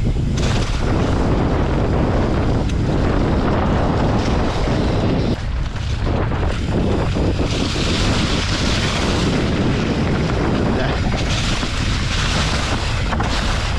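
Wind buffeting the microphone over the steady rumble and rattle of a mountain bike rolling fast down a rough dirt trail, with frequent small knocks from bumps.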